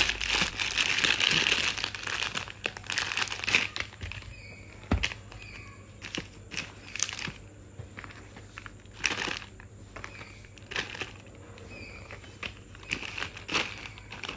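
Plastic snack wrappers crinkling and rustling as packets are handled and put into a basket. The crinkling is dense for the first few seconds, then thins out to occasional rustles and taps.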